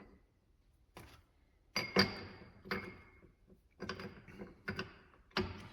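Metal tool parts clinking: a series of about seven sharp metallic knocks, some with a brief ring, as the clamshell halves of a bearing puller are adjusted and snugged around a differential carrier bearing.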